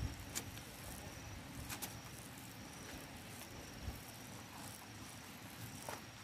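Gloved hands breaking up and sorting dry wasp-nest comb on a bamboo slat mat, giving a few sharp clicks and faint crackles, while an insect trills in short high-pitched stretches in the background.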